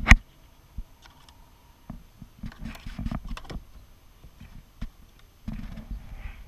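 A sharp knock at the start, then scattered light clicks and taps of a kayak paddle against a plastic sit-on-top kayak while the paddle rests. Near the end a denser low rumble sets in as paddling resumes.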